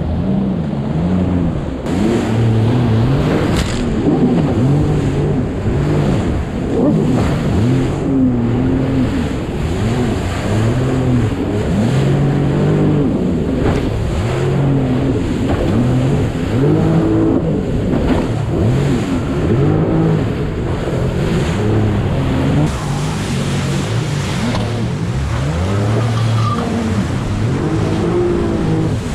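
Jet ski engine running hard and revving up and down over and over as the craft rides through waves, over a steady rush of wind and water.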